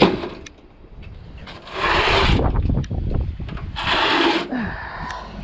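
A scrapped boiler being shoved out onto the scrap pile, scraping twice, about two seconds apart, over a low rumble.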